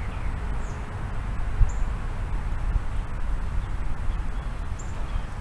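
Outdoor ambience: a steady low rumble of wind on the microphone, with three short, high bird chirps.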